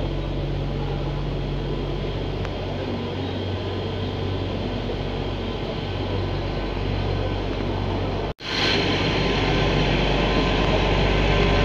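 Diesel engine of a Plasser 09-32 CSM track tamping machine running as the machine moves along the track, a steady low drone. It cuts out for an instant about eight seconds in and comes back louder as the machine passes close by.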